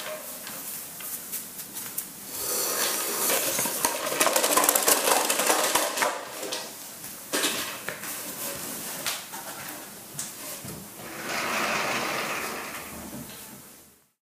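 Handling noise of a camera being picked up and moved: rustling with many clicks and knocks, busiest in the first half. A stretch of rubbing comes near the end, and the sound cuts off suddenly just before the end.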